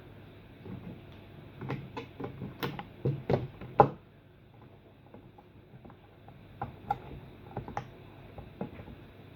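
Small plastic parts of an aquarium air pump being handled and fitted back together, giving an irregular run of short clicks and taps, busiest and loudest in the first half and sparser near the end.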